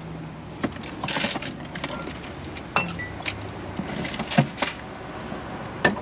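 Scattered clinks and knocks of metal camping gear being handled, gas-cartridge stove and cartridges being picked up and set down, over a low steady hum.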